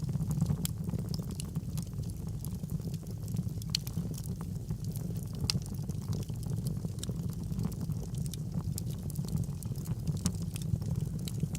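Fire burning in a fireplace: a steady low rumble of flames with many scattered sharp crackles and pops.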